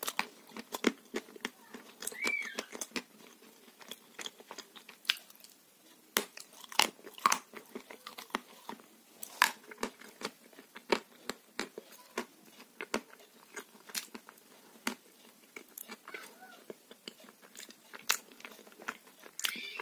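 Close-up chewing of french fries in a creamy sauce, with irregular sharp mouth clicks and smacks, a few each second.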